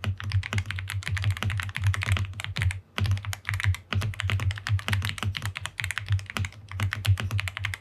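Fast typing on a Yunzii YZ87 gasket-mounted mechanical keyboard with Yunzii milk switches and double-shot PBT keycaps: a dense run of clacky keystrokes, broken by a couple of brief pauses.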